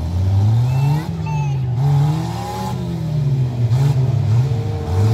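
Several stock car engines revving hard, their pitch climbing and dropping again and again as the cars accelerate through a bend.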